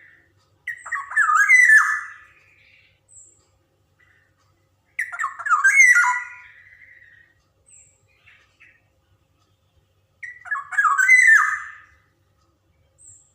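Black-naped oriole (kepodang) singing: three short phrases about five seconds apart, each a quick jumble of whistled notes lasting under two seconds.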